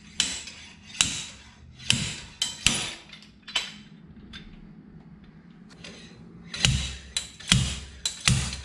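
GearWrench slide hammer being worked to pull an old inner axle seal and spacer from an axle tube: the sliding weight hits its stop in sharp, ringing metallic clacks, about one a second. Five strikes come, then a pause of a few seconds, then the strikes start again near the end.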